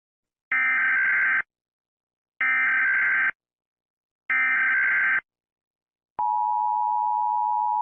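Emergency Alert System tones: three short data bursts of the SAME header, each just under a second long and about a second apart, then a little over six seconds in the steady two-tone EAS attention signal begins.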